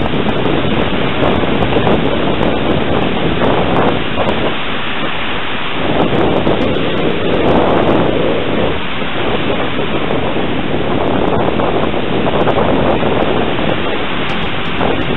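Wind buffeting the microphone of a small kite-borne camera: a loud, steady rush that swells and eases in gusts, strongest a little past the middle.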